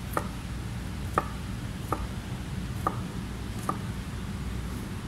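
Chef's knife slicing across a bundle of carrot julienne strips to cut brunoise, the blade knocking on a plastic cutting board: five slow, evenly spaced chops, a little more than one a second.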